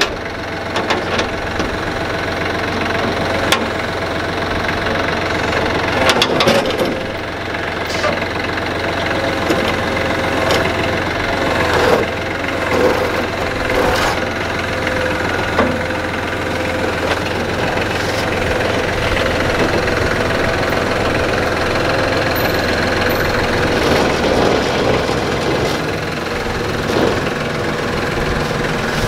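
Front-loader tractor's engine running steadily as it pulls on a tow chain, with a few sharp knocks over the top.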